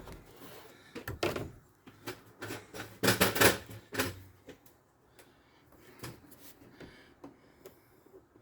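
Handling noises: a run of knocks, clicks and rattles from plastic quart bottles of motor oil and a funnel being moved about, loudest about three seconds in, then scattered lighter clicks.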